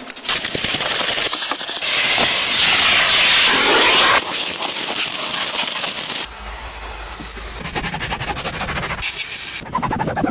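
Car detailing cleaning sounds in short, abruptly cut segments. A strong steady hiss like a spray or steam jet is loudest from about two to four seconds in, and crackling, rattling noise fills the other segments.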